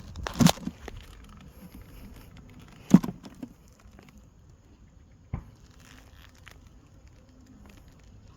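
Wooden beehive parts being handled and pulled apart: three sharp knocks, the loudest about three seconds in, over low rustling and tearing of old comb and nest material.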